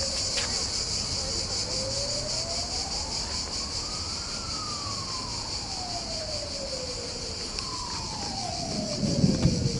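A steady, high, fast-pulsing insect chorus is the loudest sound throughout. Under it a siren wails slowly, rising and falling with a sweep of about four seconds each way. A short low rumble comes near the end.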